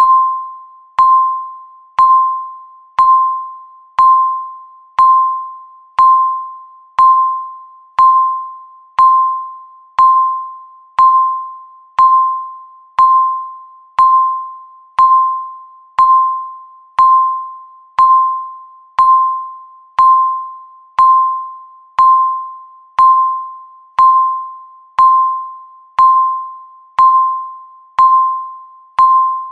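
Countdown timer beep sounding once a second: a single clear tone that starts sharply and fades away before the next, in an even, unbroken series.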